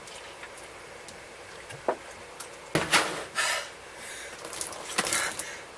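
A person breathing in sharp, noisy gasps through the mouth from the burning heat of ghost-pepper wings, with a sudden loud burst about three seconds in and a couple of small clicks or knocks.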